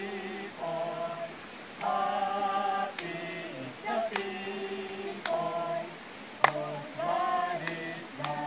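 Slow choir-like singing of held notes in chords, the chord changing about once a second, with a few sharp clicks.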